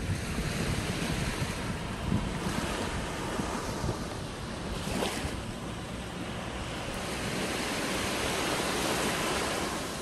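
Small waves breaking and washing up onto a sandy beach, the surf's hiss swelling and fading as each wave comes in, loudest near the end. A low rumble of wind buffets the microphone.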